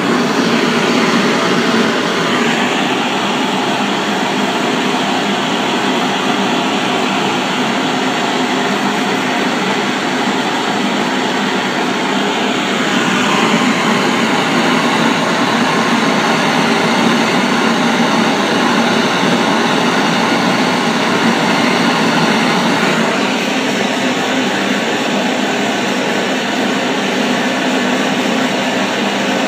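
Gas blowtorch flame burning with a loud, steady rushing noise as it heats the sculpture for a hot copper nitrate patina; the tone shifts slightly a few times.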